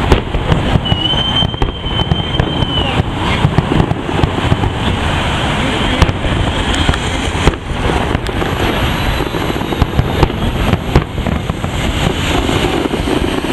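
Fireworks display going off: many sharp bangs and crackles at irregular intervals over a steady din, with a brief high whistling tone about a second in.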